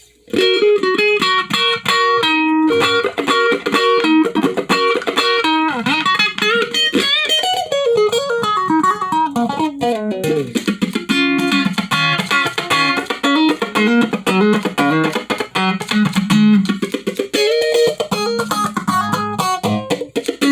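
Electric guitar played through a Malekko Phase phaser pedal, starting just after the beginning with quick picked notes and chords under a slowly sweeping phase effect.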